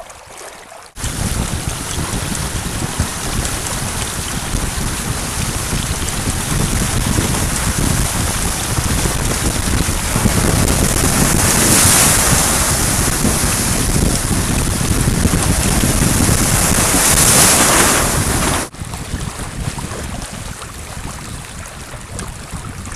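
Wind blasting on the microphone and spray hissing and splashing off the hull of a small sailing trimaran moving fast, a loud even rush that starts suddenly and swells twice. Near the end it drops abruptly to a quieter wash of water along a hull.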